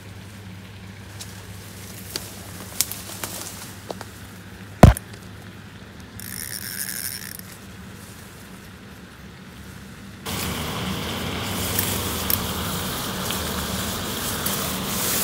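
Scattered clicks and handling knocks, with one sharp loud knock about five seconds in, then a louder steady rushing noise from about ten seconds on.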